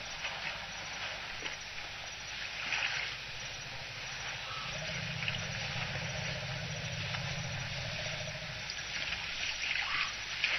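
Elephants drinking at a waterhole: water splashing and trickling in short bursts, with a low steady hum for a few seconds in the middle.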